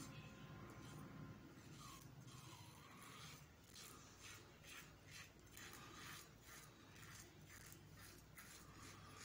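Pearl Shaving Sleek single-edge safety razor scraping through lathered stubble on the chin. The strokes are short and faint, about two a second, and start a few seconds in.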